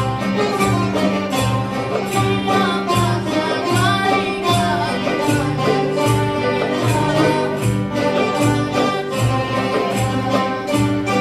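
Rebetiko played live by a large ensemble of acoustic guitars, bouzoukia and accordion. The chords are strummed on a steady beat under a plucked melody.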